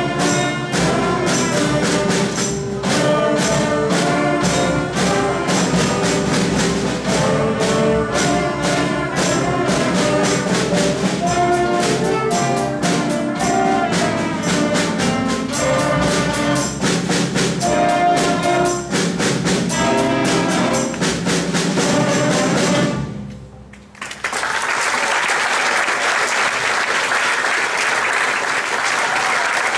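Middle-school concert band playing a piece for brass, woodwinds and percussion, with a steady beat of drum strokes. The music stops sharply about three-quarters of the way through, and the audience applauds for the rest.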